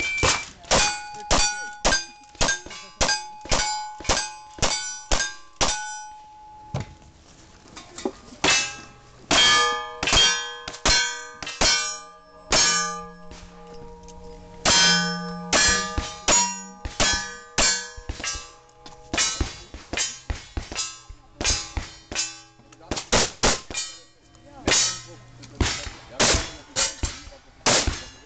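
Rapid gunfire at steel targets during a cowboy action shooting stage: a lever-action rifle and single-action revolvers firing shot after shot, each shot followed by the ringing clang of the struck steel plate. About ten quick shots in the first six seconds, a short lull, then more fast strings of shots and rings to the end.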